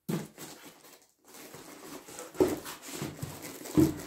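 Cardboard box and foam packing scraping and rustling as a car stereo head unit is worked out of a tight-fitting box, with heavier knocks about halfway and near the end.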